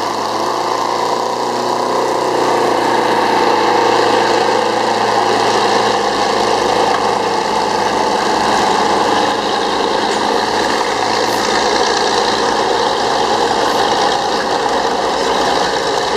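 Diesel engine of heavy earthmoving equipment running steadily at an even speed.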